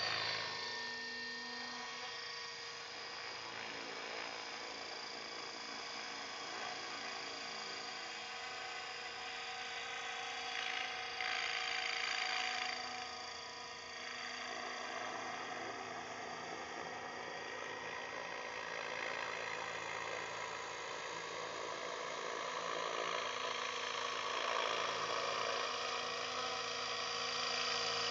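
Align T-Rex 600 radio-controlled helicopter in flight: a steady high-pitched whine with rotor hiss that swells and fades as it moves around, getting louder near the end as it comes close. A louder rushing burst comes about eleven seconds in.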